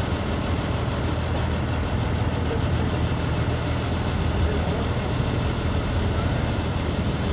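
A steady low engine hum, like a motor idling, unchanging throughout.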